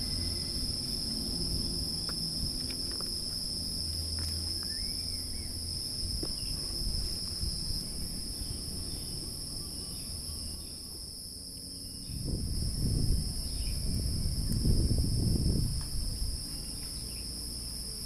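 Insects droning steadily in a continuous high-pitched buzz with two pitches. A few seconds of low rumbling come in about two-thirds of the way through.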